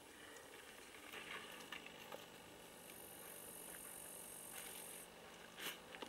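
Near silence: a faint background hiss with a few soft clicks and light rustles, and a brief faint high hiss in the middle.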